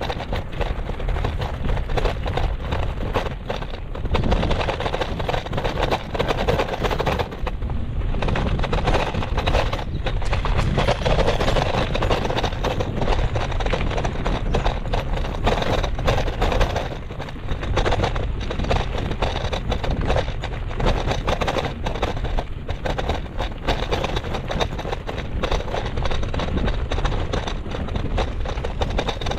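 Wind buffeting the microphone while riding a bicycle, a loud, steady low rumble broken by frequent short knocks and rattles from the bike over the ground.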